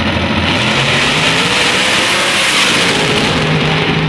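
Two drag-racing cars launching side by side from the start line at full throttle and accelerating hard down the strip, their engines loud and loudest a couple of seconds in.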